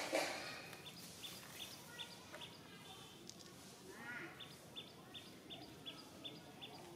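Short high chirps repeated evenly about three times a second, in two runs with a gap in the middle, over a faint outdoor background. A brief animal cry sounds right at the start, and a short gliding call comes about four seconds in.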